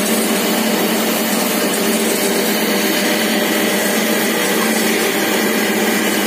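Mini dal mill plant running steadily: a constant motor and blower hum with air rushing through the husk aspiration duct and cyclone.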